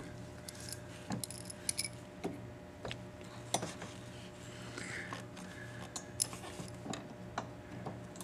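Screwdriver scraping and clicking against the small plastic cap at the base of a BMW E36 wiper arm as it is slowly pried off: scattered, irregular small clicks over a faint steady hum.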